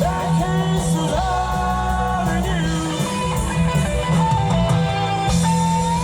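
A rock band playing live: a singer holding and sliding notes over electric guitar and drums.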